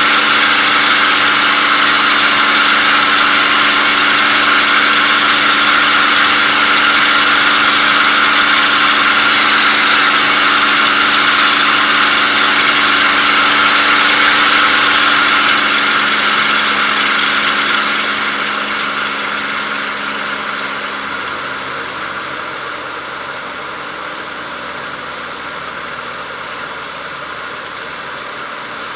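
P-51 Mustang's V-12 engine and the rushing air around the canopy, heard from inside the cockpit during landing. The sound is loud and steady over the approach. About two-thirds of the way through it falls away over a few seconds and the rush thins out as the plane settles onto the runway and slows.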